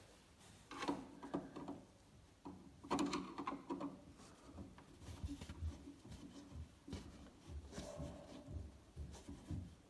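Hand working at a projector's plastic lamp housing close to the microphone: faint clicks, scrapes and rubbing in short bouts, the busiest about a second in and around three to four seconds in.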